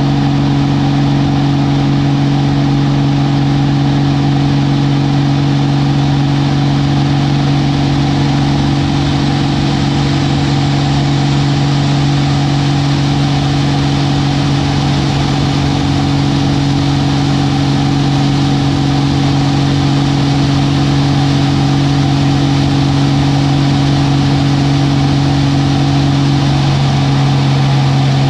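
Aerobatic monoplane's piston engine and propeller running at a steady drone, heard from inside the cockpit with rushing airflow over the canopy. The pitch shifts slightly near the end.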